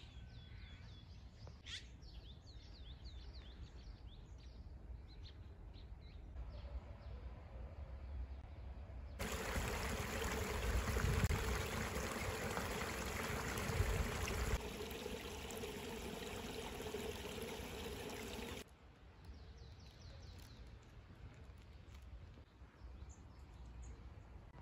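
Small shallow stream trickling over rocks, a steady rush of water for about ten seconds in the middle that starts and stops abruptly. Before and after it, faint bird chirps over quiet outdoor ambience.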